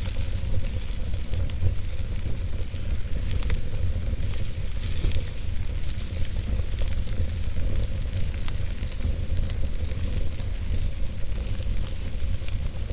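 Fire burning in a fireplace: a steady crackling hiss over a strong low rumble, with a few sharp pops.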